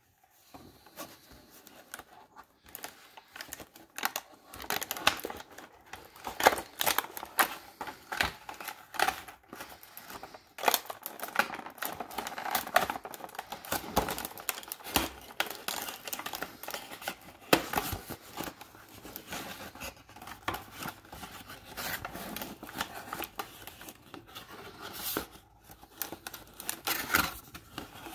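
Small cardboard box being opened by hand: its flaps and inner cardboard insert scraping, rubbing and clicking irregularly under the fingers.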